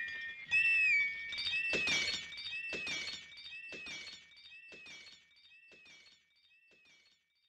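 Outro of the hip-hop beat fading out: a short high tone that rises and falls repeats about once a second, each time with a clattering hit, echoing and dying away to nothing.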